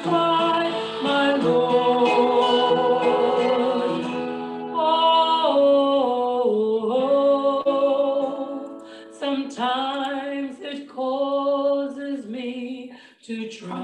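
Singing with instrumental accompaniment; about five seconds in the accompaniment thins out and the voice carries on with a wavering vibrato, its pitch sliding down around the middle.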